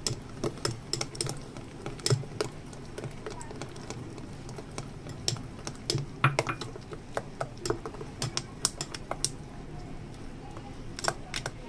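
Metal spoon stirring thick chutney in a glass bowl, clinking and scraping against the glass in a run of irregular clicks.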